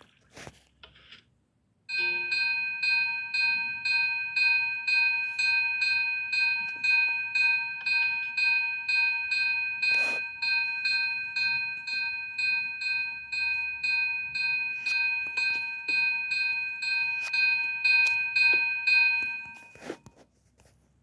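Fire alarm chime sounding a bell-like ringing tone, restruck about twice a second. It starts abruptly about two seconds in and cuts off near the end.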